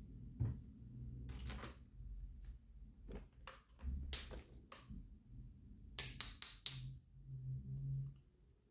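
Scattered light clicks and knocks, then four sharp metallic clinks in quick succession about six seconds in, over a faint low hum.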